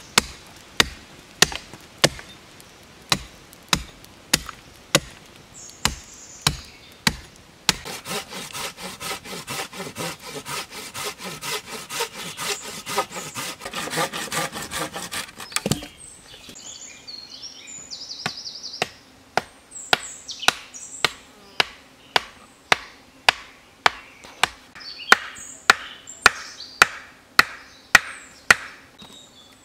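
A hatchet chopping a wooden stake to a point, in regular strikes about every half second. Then a hand saw cutting through a log for about eight seconds, in quick, even strokes. Then a second run of steady strikes as the hatchet drives a wooden stake into the ground.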